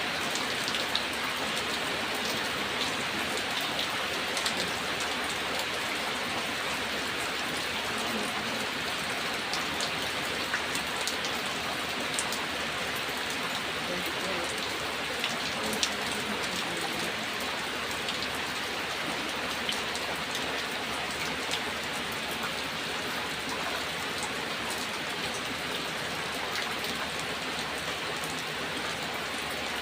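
Steady rain falling, with scattered sharp drop clicks standing out against the even hiss.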